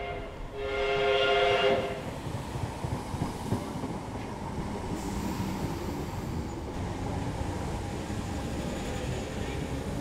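Electric passenger train sounding its horn in one blast near the start, then a steady rumble of the train running along the rails.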